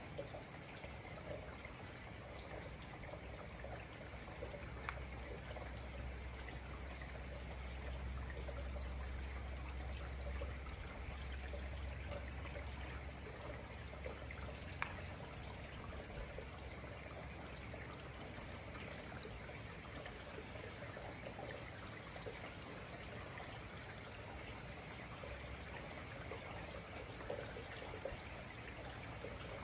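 Steady rain falling: a continuous even hiss with occasional sharp ticks of drops striking something. A low rumble lies underneath from about four to thirteen seconds in.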